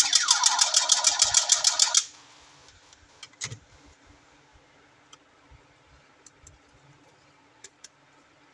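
Battery-powered electric toy gun running, a rapid rattle of about eight clicks a second with falling electronic sweeps, stopping abruptly about two seconds in. After that, only a few faint handling clicks.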